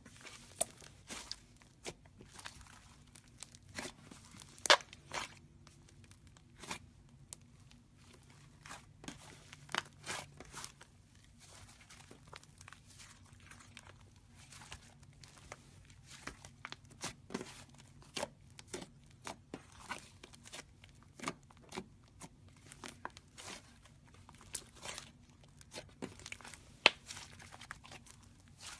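Slime being squeezed and stretched by hand, giving irregular sharp clicks and crackling pops, sparser for a few seconds in the middle. A faint steady low hum runs underneath.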